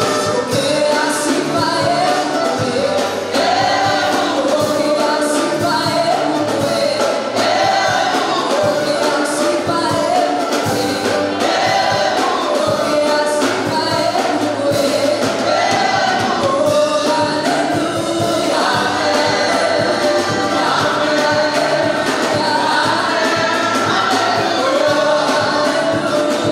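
Gospel praise team of several men and women singing together into microphones, with a steady instrumental backing and beat.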